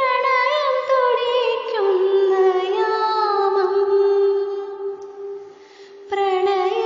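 Music: a female voice singing a slow melody with long held notes and wavering, sliding ornaments. It fades down about five seconds in and comes back strongly about a second later.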